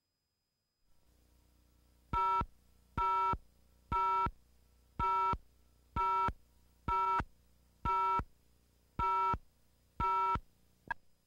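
Electronic beep tone sounding nine times, about once a second, each beep short and steady with a few pitches sounding together, then one brief blip just before the end. A faint videotape hum and hiss comes in about a second in.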